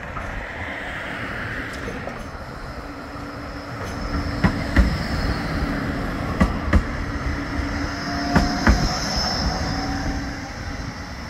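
Bombardier Flexity 2 tram running past close by: its wheels clack over the track joints in three quick pairs, about two seconds apart, over a steady low hum and a thin high whine.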